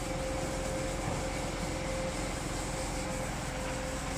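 Steady machine noise with a faint constant hum, the running of the self-serve dog wash unit's pump.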